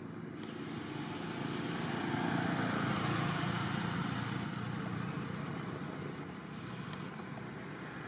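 A motor vehicle's engine running as it passes, swelling about two seconds in and fading after five.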